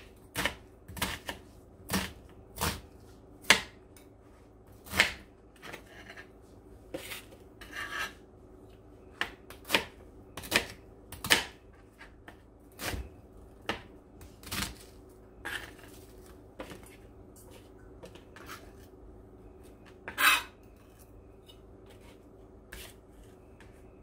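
Kitchen knife slicing an onion on a plastic cutting board: irregular sharp knocks of the blade striking the board, about one a second, over a faint steady hum.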